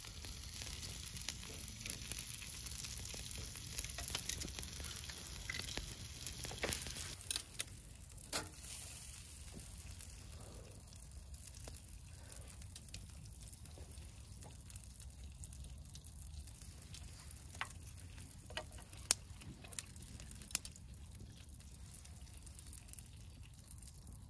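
Meat sizzling on a grill, with scattered sharp pops; the hiss is stronger for the first several seconds, then settles lower.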